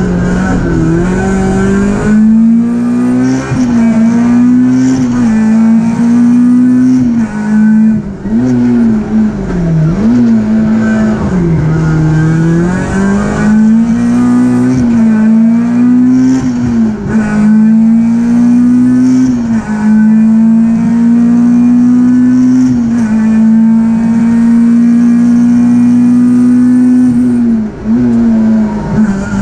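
Peugeot 306 Group A rally car's engine heard from inside the cockpit under hard acceleration, the revs climbing, dropping sharply and climbing again over and over through gear changes and corners. Near the end the revs hold high and steady for several seconds before a sudden drop.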